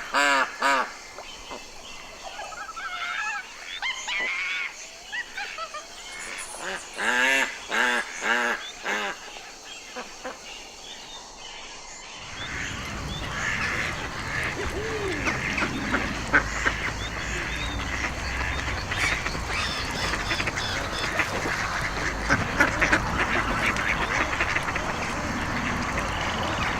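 Ducks quacking in short runs of calls. About halfway through it changes to a busier recording of a flock, many overlapping calls over a steady background din.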